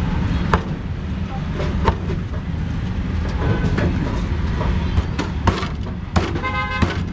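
Cleaver chopping crocodile meat on a wooden board: sharp, irregular knocks about once a second over a steady rumble of street traffic. A vehicle horn toots briefly near the end.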